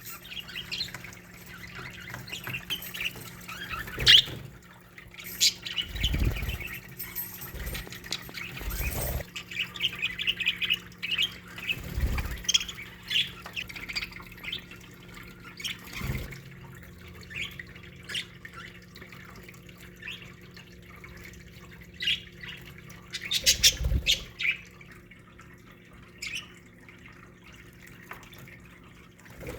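A colony of budgerigars chattering, with scattered chirps and squawks, busier in the first half. A few sharp clicks and low thumps come in among the calls, over a faint steady hum.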